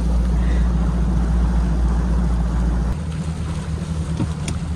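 Bass boat's outboard engine running at low speed, a steady hum with noise over it. The deepest rumble underneath drops away about three seconds in.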